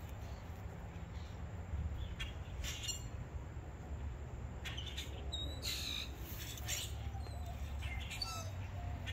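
Birds chirping in short, scattered calls over a faint low rumble.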